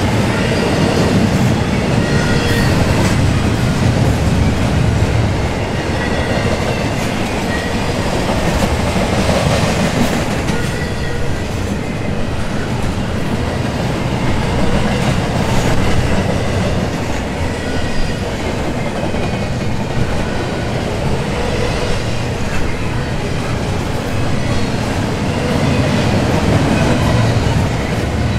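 Double-stack intermodal container well cars of a freight train rolling past: a steady loud rumble and rattle of steel wheels on rail, with faint high metallic wheel squeals now and then.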